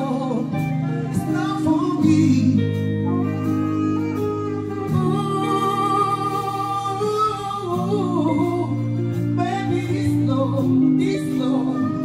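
Live band music with a male singer over the stage sound system: sustained chords under a sung melody, with one long held note in the middle.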